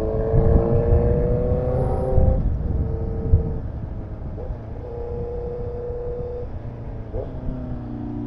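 Honda CB650R inline-four through a Zero One Villain Shorty aftermarket exhaust, heard from the rider's seat: the exhaust note rises as the bike accelerates over the first two seconds, holds steady while cruising, then drops in pitch about seven seconds in as the throttle is rolled off.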